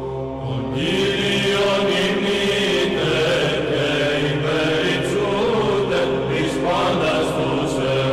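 Byzantine chant: voices sing a wavering melismatic line over a steady held drone (the ison). The melody comes in louder about a second in.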